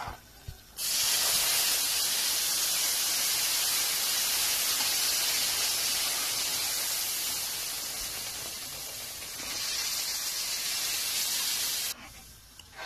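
Milk poured into a hot pan of ghee-roasted semolina, hissing and sizzling as it hits the pan. The hiss starts abruptly about a second in, eases a little, swells again and cuts off suddenly near the end.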